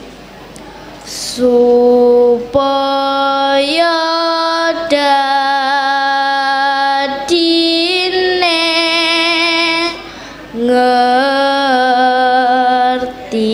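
Children's choir of girls singing a Javanese-language song, holding long notes that step up and down in pitch. The singing pauses briefly at the start and dips again about ten seconds in.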